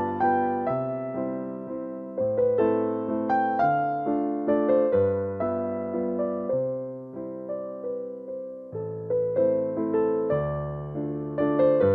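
Background music: a gentle piano melody over slow chords, notes struck and left to decay.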